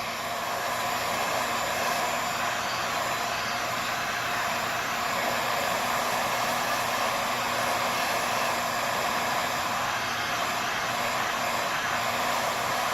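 Adjustable electric heat gun running steadily, blowing hot air around the edges of an iPhone XS to soften the waterproof adhesive seal so the screen can be pried open.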